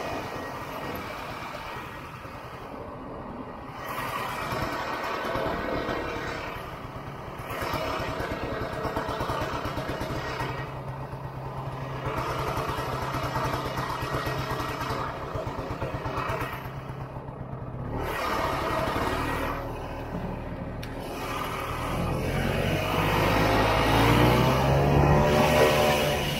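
1967 Ski-Doo Olympique 250 snowmobile's two-stroke engine running under way. The throttle is eased off and opened again several times, then the engine revs up steadily near the end as the sled accelerates.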